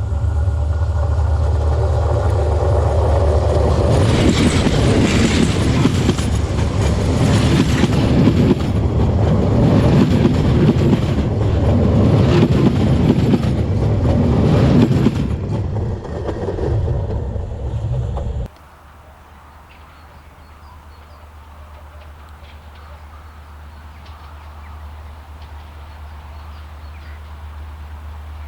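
Train running past on the tracks: a heavy steady low drone with the wheels clacking and rushing over the rails, loudest in the middle. It cuts off suddenly about two-thirds of the way through, leaving only a quieter low rumble.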